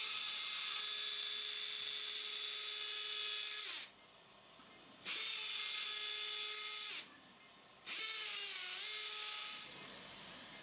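Surgical oscillating bone saw running in three bursts, a long one and then two shorter ones, with a steady high whine and hiss as it cuts through the dog's upper jaw bone during the maxillectomy osteotomy. The pitch dips briefly near the end of the last burst.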